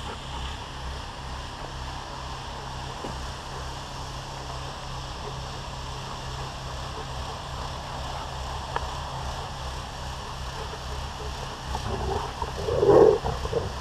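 Steady low rumble of wind and rubbing noise on a camera microphone carried among playing dogs, with a short, louder dog vocalization near the end.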